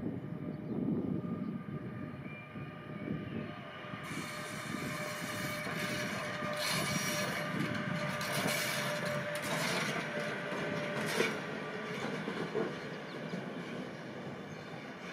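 A train passing on the line: a steady rumble of wheels on rails. A steady high wheel squeal holds for several seconds in the middle, and a few sharp clacks stand out.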